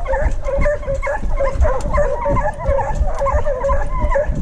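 A pack of boar-hunting hounds giving tongue: many short, overlapping yelps and bays from several dogs at once, steady throughout, as they follow the trail of a wild boar. Underneath runs a steady low rumble.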